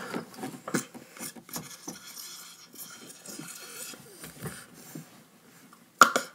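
Faint sucking and mouth noises on a drinking straw clogged with a thick mix of syrup, sprinkles and sugar that will not come up, with scattered small clicks and a short sharp noise near the end.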